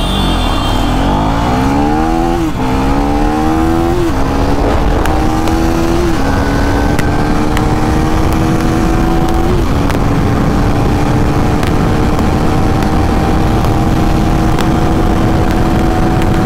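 KTM Duke 390's single-cylinder engine accelerating flat out from a standing start, the revs climbing and dropping at each upshift: four quick shifts spaced further apart each time, then a long, slow pull in a high gear. Wind rush over the microphone underneath.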